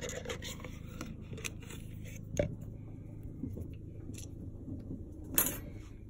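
Handling noise on a workbench: scattered scrapes and knocks as a small titanium lockpick is lifted out of its jar and handled, with a sharper knock about two and a half seconds in and the loudest one near the end, over a low steady hum.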